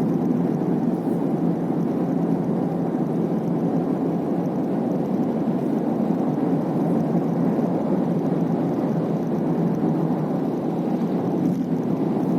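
Steady road and tyre noise in a Honda City's cabin while driving, with a few faint light ticks now and then.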